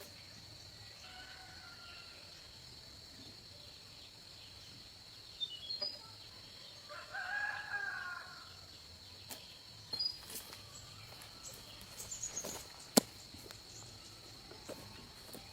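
A rooster crowing once, about seven seconds in, with a fainter crow about a second in. A steady high-pitched tone runs underneath, and scattered light knocks and clicks come through, the sharpest about thirteen seconds in.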